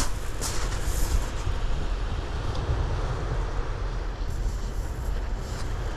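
Wind buffeting the microphone: a steady low rumble with a hissing wash over it, no distinct events.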